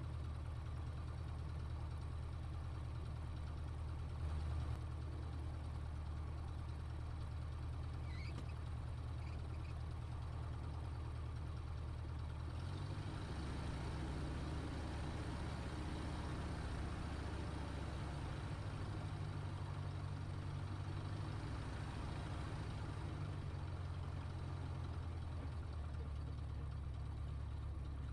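Light aircraft's single piston engine and propeller turning over at low taxiing power, heard from inside the cockpit. Just under halfway through the engine note changes and grows a little fuller as power is added; a brief louder knock comes about four seconds in.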